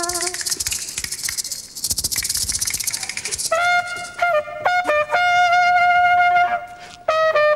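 Maracas shaken in a fast, steady rattle for about the first three and a half seconds. A solo trumpet then plays a slow melody with one long held note, breaks off briefly and comes back in at the end.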